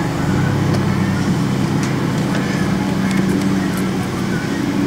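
Lawnmower engine running steadily, a low even hum. A few faint light clicks sound over it.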